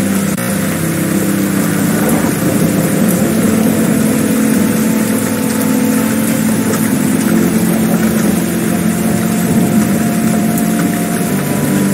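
An engine running steadily over a loud rushing noise.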